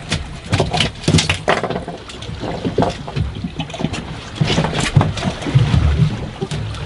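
Water slapping and sloshing against a small fishing boat's hull in choppy sea, in irregular splashy knocks with low thumps between them.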